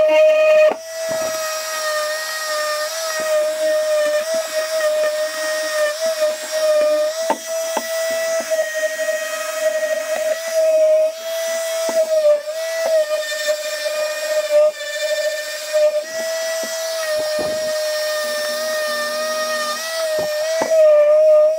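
Handheld electric orbital sander running with a steady high whine as it sands the edge of a wooden heart-shaped piece; the pitch wavers and dips briefly now and then as the pad is pressed into the wood, with a few light knocks.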